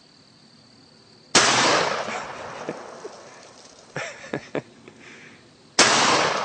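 Two shots from a Mossberg 930 12-gauge semi-automatic shotgun, about four and a half seconds apart, each a sharp bang with a long echoing tail. A few lighter clicks come between the shots.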